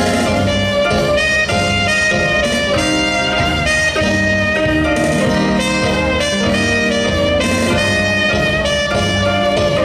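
Instrumental band music with a horn melody carried over a steady accompaniment, with no singing.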